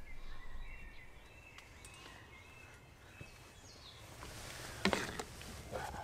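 Faint woodland ambience with distant birdsong. Near the end come a few sharp knocks and clinks as a ladle and camping plates are handled at the cast-iron pot.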